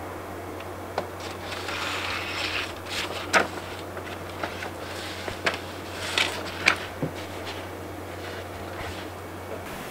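Handling noises at a desk: a few sharp clicks and short bursts of rustling over a steady low hum, which cuts off just before the end.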